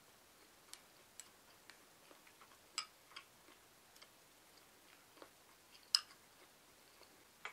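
Chopsticks clicking against a ceramic rice bowl while eating from it: scattered light, irregular clicks, the loudest about six seconds in.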